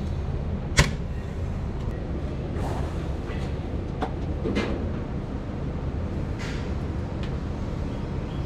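Hands handling a cylindrical mesh filter and its round housing cap on a John Deere machine: one sharp knock about a second in, then lighter clicks and scrapes, over a steady low hum.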